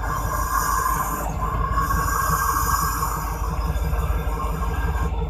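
Diesel locomotive running steadily, heard from inside the cab: a constant low rumble with a higher-pitched hissing noise over it. The hiss drops out briefly about a second and a half in and stops just before the end.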